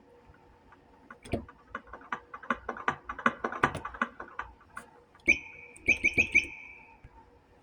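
Sound-effect samples played on an electronic keyboard: a quick run of irregular clicks and taps, then five short high chirps near the end.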